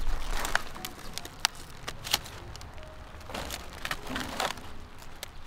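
Crisp cracks and crackles of cabbage leaves and stalk snapping as a head of cabbage is picked by hand, a sharp crack every second or so.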